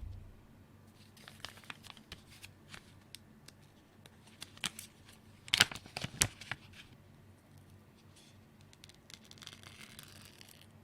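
Keyboard parts being handled during assembly: scattered light clicks and taps, two sharper clacks about six seconds in, and a brief crinkling rustle near the end.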